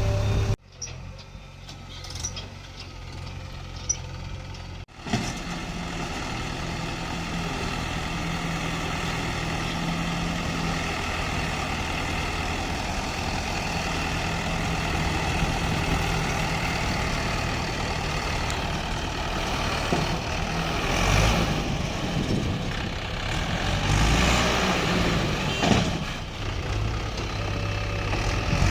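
Diesel engine of heavy earthmoving machinery running steadily, with a quieter stretch over the first few seconds and twice surging louder in the last third, as under load.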